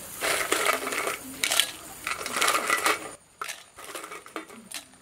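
Dry fried spices and dried red chillies tipped into a stainless-steel mixer-grinder jar, rattling and clinking against the steel in a run of bursts, then only a few light clicks over the last two seconds.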